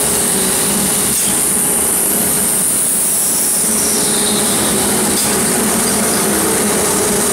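GT6/12 steel wire straightening and cutting machine running steadily: a continuous mechanical hum with a steady high hiss above it.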